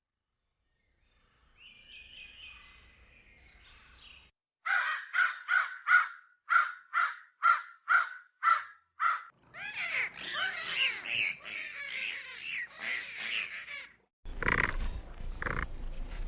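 A series of about a dozen harsh, evenly spaced bird calls, then many birds calling at once in a dense chorus. A different animal sound starts near the end.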